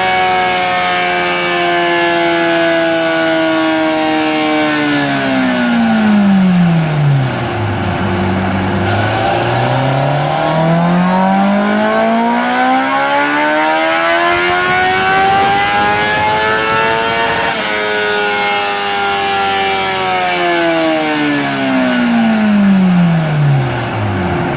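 2017 Honda CBR1000RR Fireblade's 999 cc inline-four on its stock exhaust, run on a dyno. The revs fall away to a low point about eight seconds in, then climb steadily for about ten seconds. After a sudden change near eighteen seconds they wind down again.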